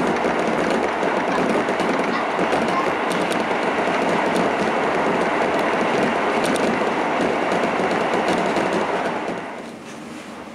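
Running noise of a Keisei commuter train rolling along the rails, a steady rumble with faint clicks, that falls off sharply about nine and a half seconds in as the train slows on the approach to its terminus.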